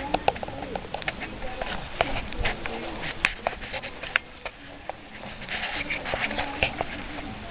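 Chickens clucking in low, wavering calls, with many sharp clicks and taps scattered throughout.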